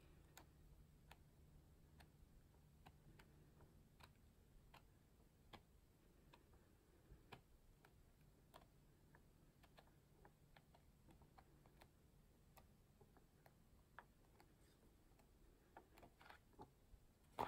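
Near silence with faint, sharp ticks at uneven spacing, about one a second: paperback pages flicking over as the book is leafed through.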